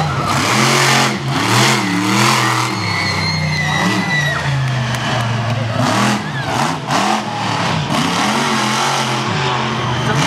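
Monster truck engine revving hard, its pitch rising and falling over and over, with short crunching hits about six seconds in as the truck climbs over crushed cars.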